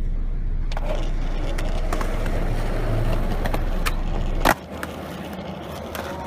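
Skateboard wheels rolling on a hard court surface with a few light clicks, then one sharp clack about four and a half seconds in as the board lands a flip trick; the rolling is quieter afterwards.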